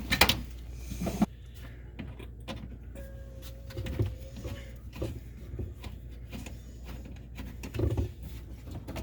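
Tools and clutter being rummaged through by hand: scattered, irregular clicks and clinks with a few duller knocks.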